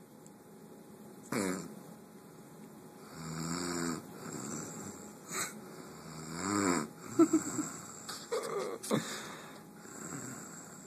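A woman snoring in her sleep: irregular, rattling snores, a short snort about a second in, then a run of sharp, louder snorts around seven to nine seconds in.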